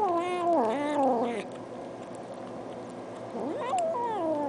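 A domestic cat making two drawn-out, wavering meow calls. The first is long and ends about a second and a half in. The second is shorter, rises and then falls, and comes near the end.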